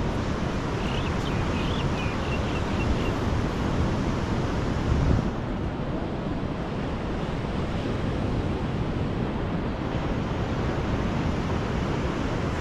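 Mediterranean surf breaking and washing on the shore, a steady rush of waves, with wind buffeting the microphone.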